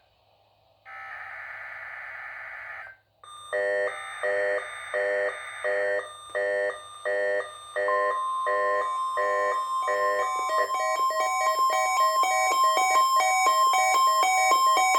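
NOAA Weather Radio test signal on a weather radio: the last raspy burst of the digital SAME header ends about 3 s in. The receiver's alarm then beeps in pulses about twice a second, and about 8 s in the steady 1050 Hz warning tone joins it. About 10 s in the alarm turns to rapid, continuous beeping over the tone.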